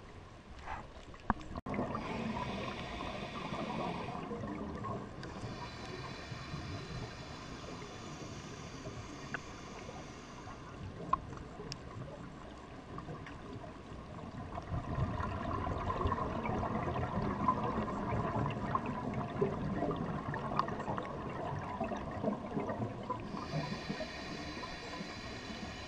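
Scuba diver breathing through a regulator underwater: a hiss on the inhales, and rumbling, gurgling exhaust bubbles on a long exhale in the second half, with the hiss coming back near the end.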